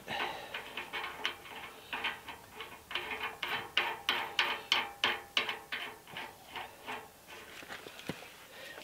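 Steel nut being spun by hand onto the threaded spindle of a wheel hub, giving a quick run of light metallic clicks, about three or four a second, that thin out near the end.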